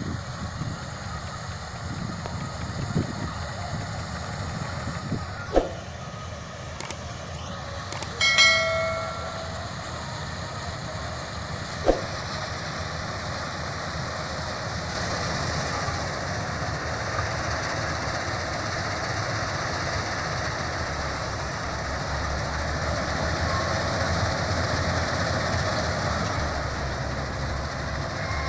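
Combine harvester running steadily in a wheat field, a continuous engine and machinery rumble that grows a little louder in the second half. A few sharp knocks, and a brief pitched tone about eight seconds in.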